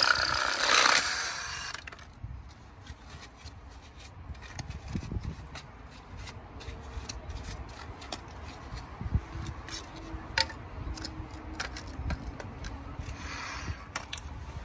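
Compact reciprocating saw cutting through a black ABS pipe coupler, a loud rasping cut that stops about two seconds in. Then plastic pieces being handled with scattered clicks, and a second short cut a little before the end.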